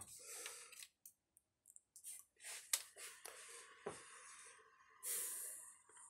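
Quiet handling sounds as hands work on an opened laptop: soft breathing, a few small clicks and taps, and a faint steady hum over the last two seconds.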